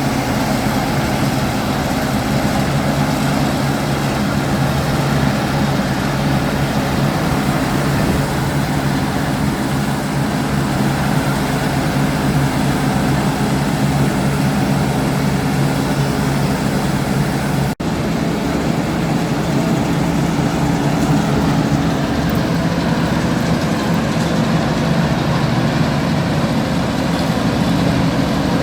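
Massey Ferguson 410 combine harvester running steadily, its engine and threshing machinery making a continuous mechanical sound, with a momentary break about eighteen seconds in.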